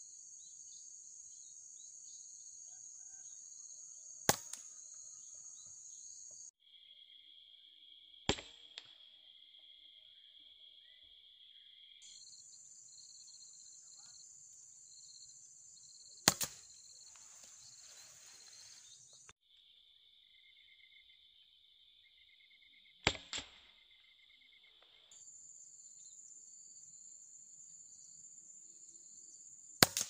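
Five sharp cracks from a Sharp Canon 747 multi-pump air rifle firing, pumped four times, each crack followed closely by a smaller tick. Behind them runs a steady high insect chirring that changes pitch abruptly several times.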